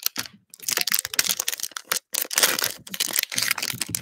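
Foil wrapper of a trading-card pack crinkling and tearing as it is ripped open by hand, in quick bursts of crackle with short pauses just after the start and about halfway through.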